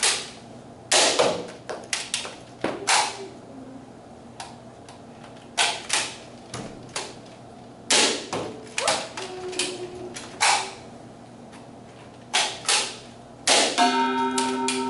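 Nerf Rival blaster firing foam balls in quick irregular clusters of sharp cracks and knocks, a few shots a second at times with pauses between, as balls are shot at knockout targets. A steady ringing tone with several pitches starts near the end.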